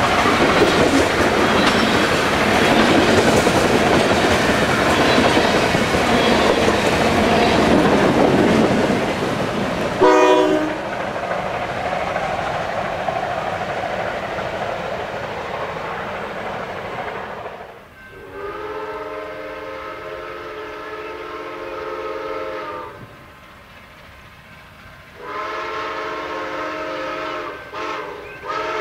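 A long freight train of tank cars rolls past with its wheels clacking over the rail joints. After a break, an approaching locomotive's horn sounds two long blasts, the first about five seconds long and the second about three.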